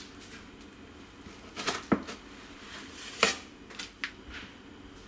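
Metal knife blade cutting a slice from a set cheesecake and its biscuit base, with a handful of sharp knocks and scrapes as the blade meets the countertop, the loudest about two and three seconds in.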